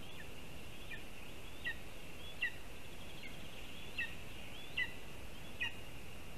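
Lesser spotted eagle chick giving a string of short, high chirping calls, about eight of them at an even pace of roughly one every 0.8 seconds, each sliding down in pitch. A steady hiss runs underneath.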